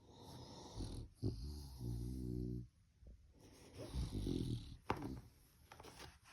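A sleeping puppy snoring and snuffling: a run of noisy breaths, one of them a longer, pitched snore about a second and a half in.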